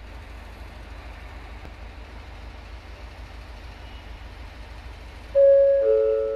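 Steady low hum and rumble at the station with the train standing. About five seconds in, a two-note falling chime rings out over the station loudspeakers and dies away slowly: the attention chime that comes before a platform announcement.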